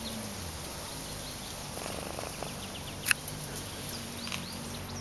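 A kitten knocks into the camera once, sharply, about three seconds in, over a steady low hum and a few faint high chirps.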